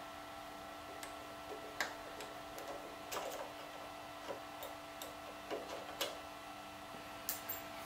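Hand tapping a threaded hole in a metal boring-bar sleeve with a T-handle tap wrench guided by a tap follower: irregular light metallic clicks and ticks as the wrench is turned and regripped. A steady faint hum runs underneath.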